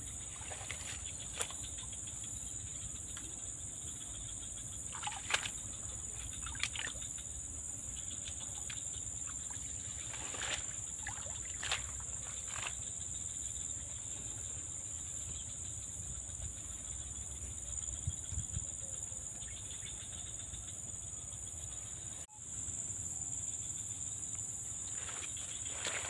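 Steady high-pitched insect chorus, with a few brief sharp chirps and clicks scattered through it. It drops out for an instant near the end and comes back slightly louder.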